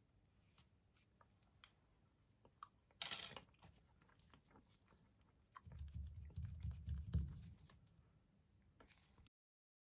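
Faint handling sounds from gloved hands at a cup of rolled ice cream: small clicks and crinkles, a short scratchy rustle about three seconds in, and a low rubbing from about six to seven and a half seconds in. The sound cuts off sharply near the end.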